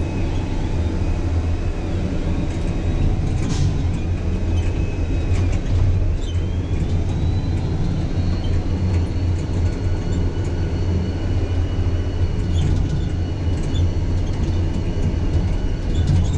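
Yard dog terminal tractor driving across the yard, heard from inside the cab: a steady low engine rumble with cab rattle. A single sharp knock comes about three and a half seconds in, and a faint high whine rises about six seconds in and then holds.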